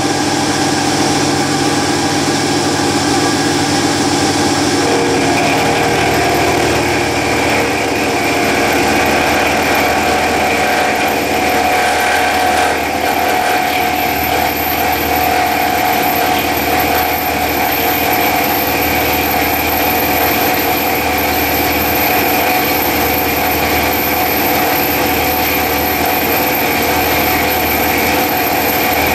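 Clarke mill drill running at 2100 RPM, its two-flute end mill cutting a slot in aluminium: a steady machine sound of motor, spindle and cut. The sound changes about five seconds in, then holds steady.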